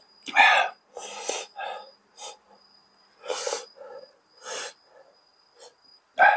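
A person's sharp, hissing and puffing breaths through the mouth, about seven short bursts, from eating food made fiery with Cheongyang chili peppers.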